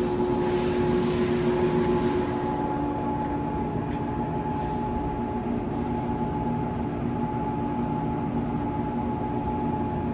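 Blanchard 42-inch rotary surface grinder running: a steady machine drone with constant humming tones over a low rumble. A high hiss on top stops about two seconds in.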